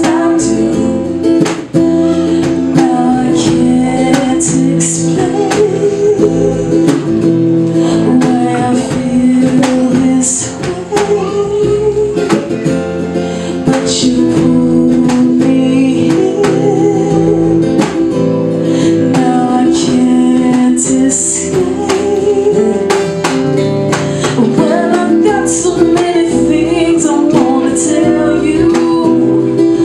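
Live band music: a singer with a strummed acoustic guitar, an electric bass and a hand drum keeping time.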